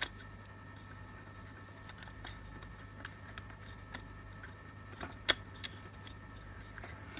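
Scattered light clicks and taps of the security light's parts being handled and slotted together, the sharpest a little past five seconds in, over a steady low hum.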